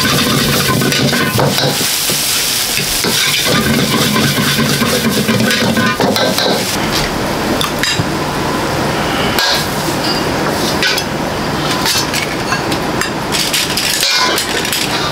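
Stir-frying in a restaurant kitchen: a metal utensil clinking and scraping against a pan over sizzling food, with a steady rushing hiss behind, and more frequent clinks from about halfway through.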